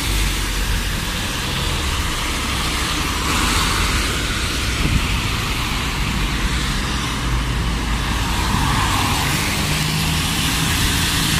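Road traffic on a wet road: a double-decker bus and then cars passing close by, with tyres hissing on the wet surface over a low engine rumble.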